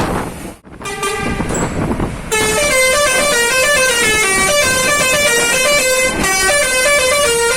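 Bus telolet horn of the Basuri multi-tone type playing a melody of stepping notes. It starts about two seconds in and carries on, loud. A fainter tone sounds just before it.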